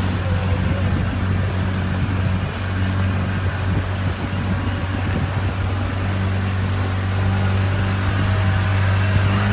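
Small motorboat's engine running steadily, a low hum with the boat under way.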